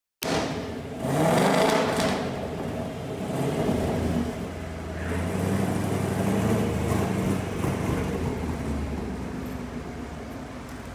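Car exhaust with long-tube headers and an X-pipe: the engine revs up about a second in, then runs on with a rising and falling note that slowly fades near the end. The exhaust no longer leaks, having just been pushed together and clamped.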